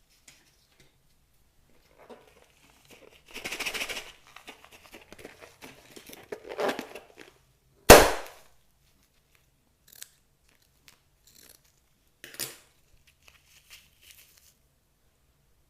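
Old slime being worked by hand, making irregular crackling, crinkling noises. About 8 seconds in comes one sharp pop, the loudest sound, with a smaller crackle a few seconds later.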